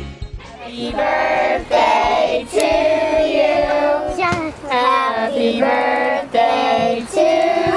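A song sung by children's voices, in phrases of held notes with short breaks between them.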